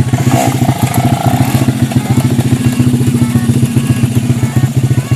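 Off-road dirt bike engine running loudly, with a fast, even firing pulse.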